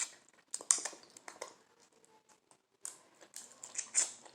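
Irregular wet, sticky clicks and smacks close to the microphone, from sauce-coated shrimp being handled and eaten, spaced unevenly with a few quiet gaps.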